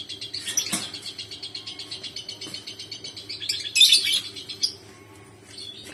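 Lovebirds chirping: a rapid string of high chirps, with a louder burst of chirps a little after halfway.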